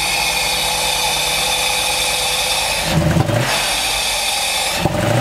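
Mercedes 450SLC's 4.5-litre V8 idling evenly on all cylinders, then blipped by hand on the throttle twice, about three seconds in and again near the end, each rev rising and falling quickly. A sharp pop comes just as the second rev starts: a backfire.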